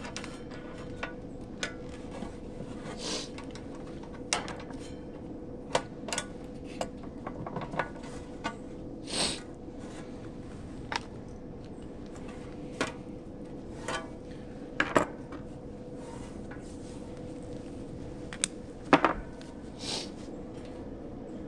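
Scattered metallic clinks and clanks of hand tools and metal parts being handled during a condenser fan motor replacement, the loudest a quick double clank about 19 seconds in, over a steady hum.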